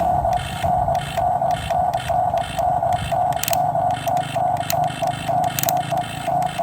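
Huina remote-control toy excavator running: a tone that pulses about two to three times a second over a low motor hum, with a couple of short sharp clicks.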